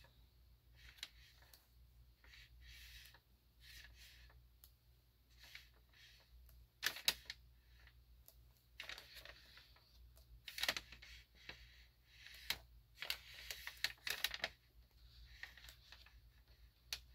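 Thick glossy pages of a photobook being turned by hand: faint paper swishes and rustles, with a few sharper snaps of the pages, the loudest about seven, ten and fourteen seconds in.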